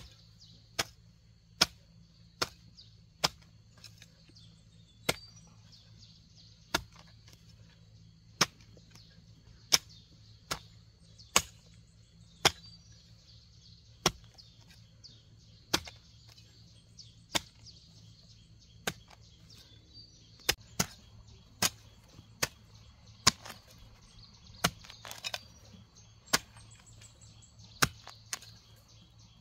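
Hand hoe chopping into grassy soil, over and over: sharp single strikes at an uneven pace of roughly one a second.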